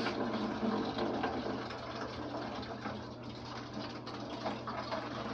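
Water running steadily into a bathroom fixture, with a low steady hum underneath; the drain is taking it freely, not backed up.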